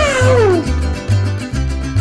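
A cat's single meow near the start, falling in pitch over about two-thirds of a second, over background music with a steady bass beat.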